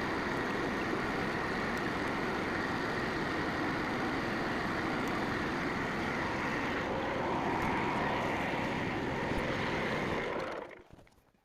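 Portable bandsaw mill's gas engine running steadily, then stopping about ten seconds in.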